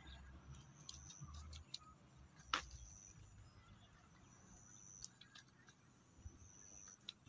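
Near silence with faint handling noises while a small fish is unhooked by hand: a few light clicks, and one sharp click about two and a half seconds in.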